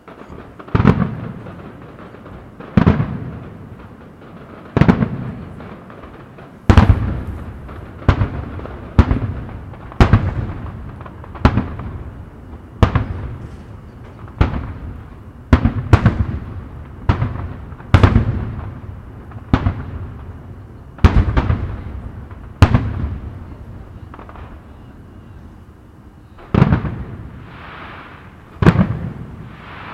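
Aerial fireworks shells bursting in a steady series of booms, about one every second or two, each trailing off in a rolling echo. There is a pause of a few seconds before the last two bursts.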